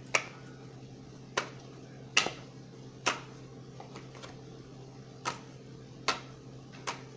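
Cards being set down on a table: about seven sharp, irregularly spaced taps over a steady low hum.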